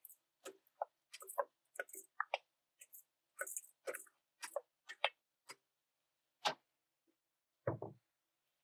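Dry short-grain rice poured from a stainless steel bowl into a paella pan, the grains striking the metal in a run of quick, irregular clicks that thins out after about five seconds. A single low thump near the end.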